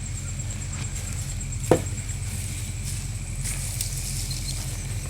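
Steady low background rumble with a faint high steady whine, broken by one sharp knock a little under two seconds in and a lighter one near the end.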